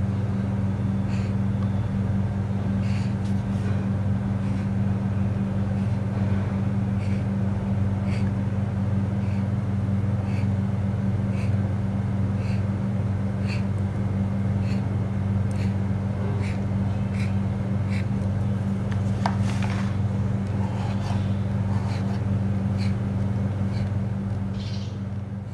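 A steady low hum, with light clicks about once a second as a knife cuts slits in rolled nimki dough, its tip tapping the wooden board. The sound fades out near the end.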